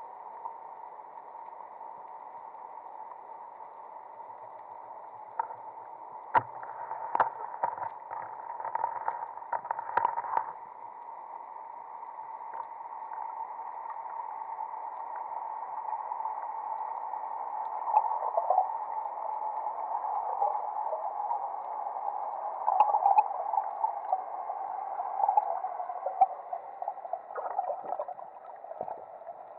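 Muffled underwater sound through a sealed camera housing: a steady hiss with a faint hum, broken by a run of sharp clicks and knocks about six to ten seconds in as the Azure Ambush 100 roller speargun is fired and the shaft strikes a black seabream. Further irregular knocks and rattles through the second half come from the speared fish and the gear being handled.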